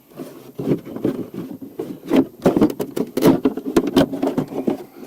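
Hands working a plastic switch loose from a car's dashboard: a quick, irregular run of plastic clicks, knocks and rattles.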